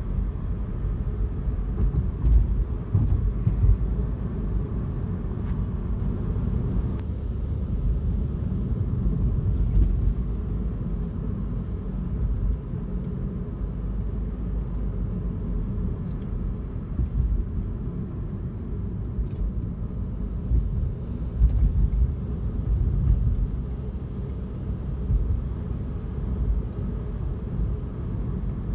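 Steady low rumble of a car on the road, heard from inside its cabin: engine and tyre noise while driving at a steady pace.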